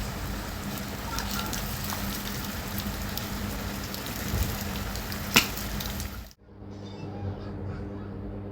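Heavy rain falling, a dense steady hiss with one sharp click about five seconds in. A little after six seconds it cuts off abruptly to a quieter background with a low steady hum.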